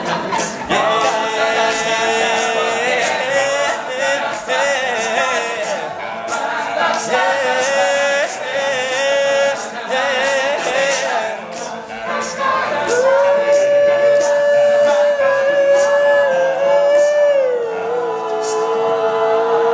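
Male a cappella group singing in close harmony over sharp percussive hits that keep the beat. Near the end a lead voice holds a long high note, then slides down as the group settles onto a sustained final chord.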